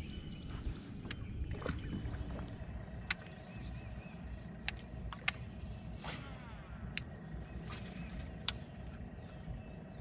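Wind buffeting the microphone and water lapping against a bass boat's hull, with scattered sharp clicks and taps.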